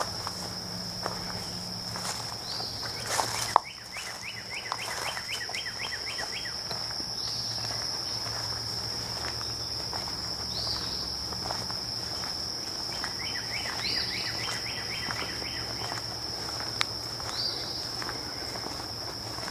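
Steady high-pitched insect chorus of crickets, with birds calling over it: a short rising call every few seconds and, twice, a quick run of repeated notes. Footsteps walking the path, and one sharp knock about three and a half seconds in.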